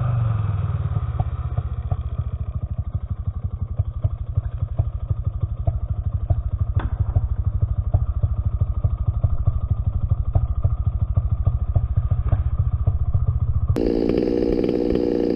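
Two-stroke chainsaw idling with a steady low throb. It sounds muffled for most of the stretch, then clearer near the end. A single sharp tick comes about seven seconds in.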